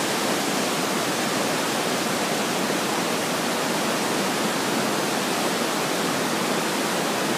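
Inglis Falls and the rapids of the Sydenham River below it, an unbroken steady rush of falling water.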